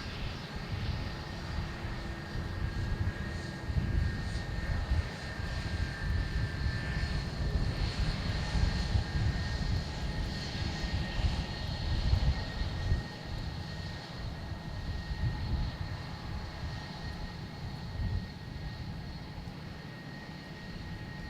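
Jet airliner taking off, a low engine rumble with a steady high whine over it, growing fainter in the second half as it climbs away.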